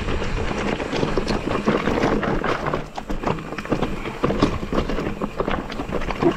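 Electric mountain bike riding down a rocky track: a fast, irregular run of knocks and rattles as the tyres and frame hit the stones.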